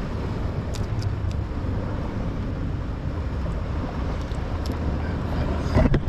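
Wind rumbling steadily on the microphone with the sea behind it, a few faint clicks early on, and a cluster of handling knocks near the end.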